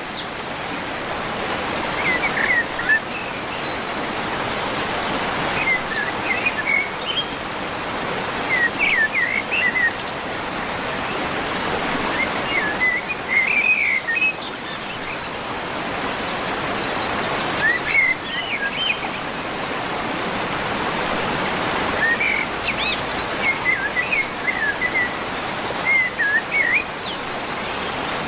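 Waterfall: a steady rush of falling water, with birds chirping in short clusters every few seconds over it.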